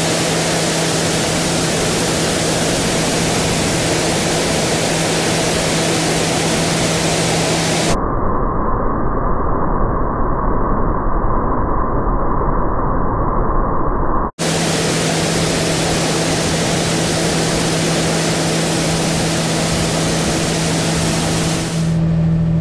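Case IH combine running at full throttle with a steady engine hum under a loud, even hiss while it unloads corn into a semi trailer. The sound turns abruptly muffled and dull for about six seconds from about 8 s in, then returns; near the end the hum comes forward and the hiss drops.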